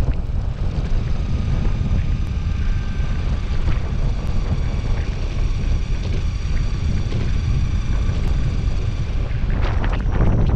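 Wind buffeting the microphone while riding a Lacroix DSS50+ electric skateboard: its wheels rumble on the asphalt under a faint, steady, high motor whine, and the rumble turns rougher and knockier near the end.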